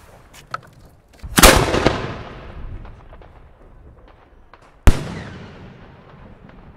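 Italian aerial firework shell fired from a mortar tube: a loud launch bang about a second and a half in, then the shell bursting overhead about three and a half seconds later, each with a long echoing tail. Faint scattered cracks of other fireworks are heard between them.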